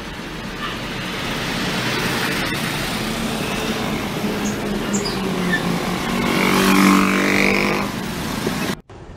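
Motorcycle engine and road traffic heard while riding, over a steady rushing road noise. An engine note grows louder from about three to eight seconds in, then the sound cuts off abruptly near the end.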